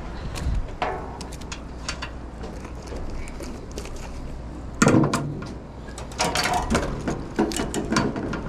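A string of knocks, clicks and clatters as a fish and gear are handled on a fishing pier. The loudest knock comes about five seconds in, with a quick cluster of clicks and taps over the next few seconds.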